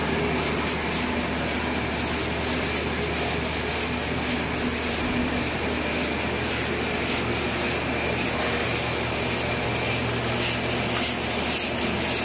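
Fish feed pellet line running: a low steady hum of electric motors with a continuous rushing hiss of pellets tumbling and sliding in a rotating drum.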